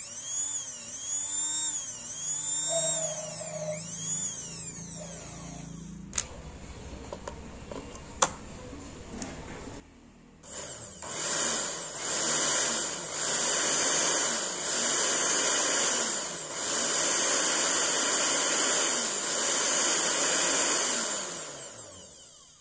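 Philips HR1731 blender's electric motor whining in short bursts, its pitch swooping up and down several times. It then runs at high speed for about ten seconds and winds down near the end. The motor's dried shaft bushing has just been oiled.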